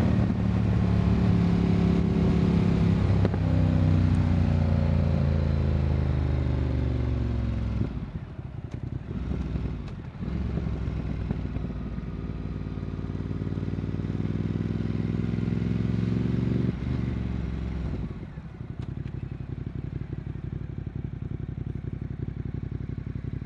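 Motorcycle engine during a ride: it slows with falling pitch for a few seconds, dips, pulls up again with rising pitch, then eases off and settles to a steady low rumble near the end.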